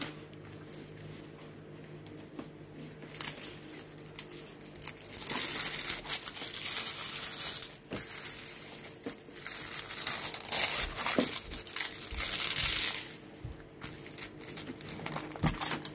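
Clear plastic film on diamond painting canvases crinkling as hands handle and smooth the canvases flat. Quiet for the first few seconds, then crinkling in long stretches from about five seconds in, with lighter rustles and ticks near the end.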